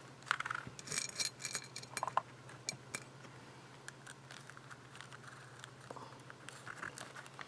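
Faint handling sounds of a crafter working a paper coffee-filter envelope: soft paper rustling under the fingers and a scattering of light clicks of small items set on the tabletop, over a low steady hum.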